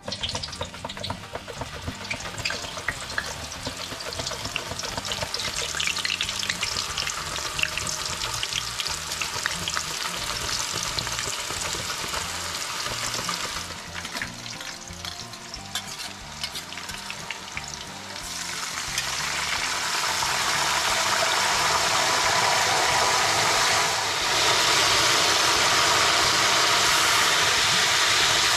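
Raw green banana slices frying in hot oil in a wok, crackling and sizzling. About 19 seconds in the sizzle grows louder and denser as a full batch bubbles hard, the oil still boiling up as it does while the chips are not yet crisp.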